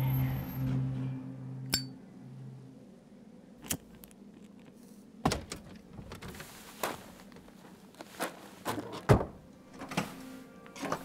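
Music fades out over the first few seconds. Then comes a series of separate sharp clicks and clunks from a car door and a gas-pump fuel nozzle being handled, the loudest clunk about nine seconds in.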